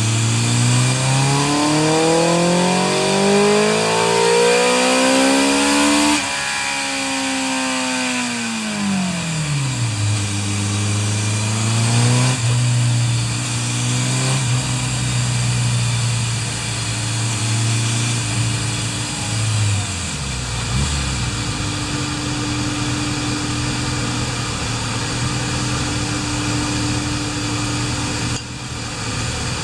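Kawasaki Z2's tuned air-cooled inline-four engine on a chassis dyno, revving steadily up through a pull under load for about six seconds and then winding down as the throttle closes. It holds a steady fast idle, settles to a lower idle about twenty seconds in, and the engine sound drops away near the end.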